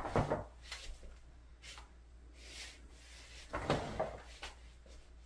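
Scattered soft rustles and light taps from a painter handling brush and paper in a small, quiet room, the loudest about three and a half seconds in.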